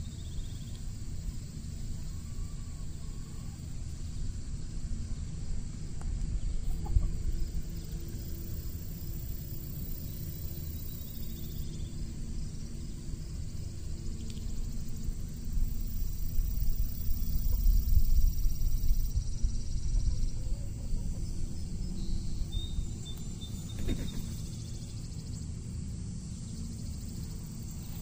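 Backyard chickens clucking softly now and then while foraging, under a steady low rumble that swells in the middle.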